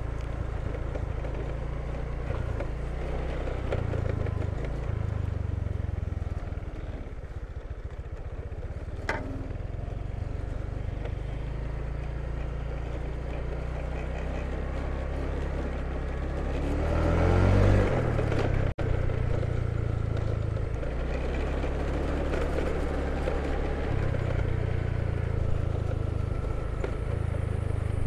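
A small vehicle engine running under way along a dirt road, with a rushing noise over it. About two-thirds of the way through the engine revs up briefly, and the sound cuts out for an instant just after.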